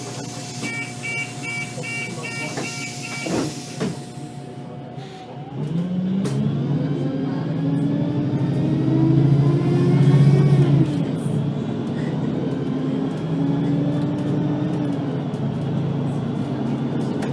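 VDL Citea LLE-120 city bus: door warning beeps, about two a second, over a hiss of air, then a knock as the doors shut. The bus then pulls away, its engine rising in pitch, dropping at a gear change, then rising again.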